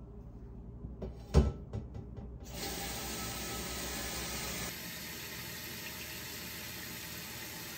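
A knock as a stock pot is set down, then a kitchen tap runs steadily into the pot, filling it with water. The stream drops a little in level about halfway through.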